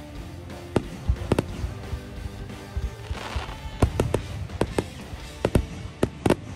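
Fireworks going off over background music: sharp bangs at irregular intervals, with a burst of crackling about three seconds in.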